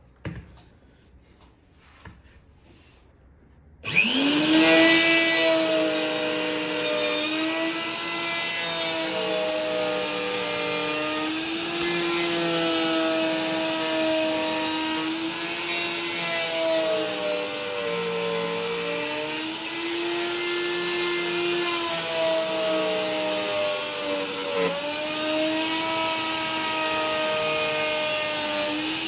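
Electric wood router starting a few seconds in: its whine rises quickly, then holds steady and high-pitched, wavering and dipping slightly as it cuts into wood. A few faint clicks come before it starts.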